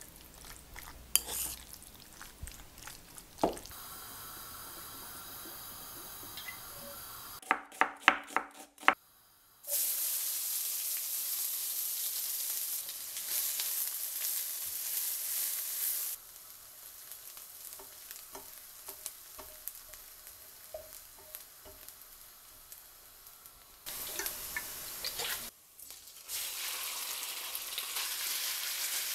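Sliced raw beef being mixed in a ceramic bowl, with clicks of the utensil. About ten seconds in, a sudden steady sizzle begins: chopped onions frying in oil in a stainless-steel wok, stirred with a silicone spatula. The sizzle drops back, then returns near the end as the sliced beef goes into the pan.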